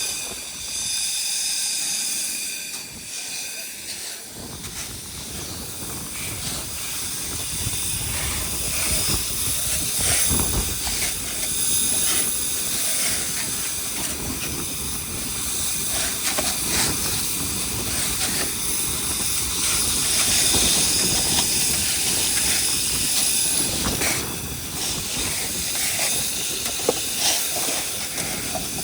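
Grain vacuum running, sucking spilled corn up through its hose: a steady rushing hiss, with a high whine fading out in the first few seconds and a light crackle of kernels throughout.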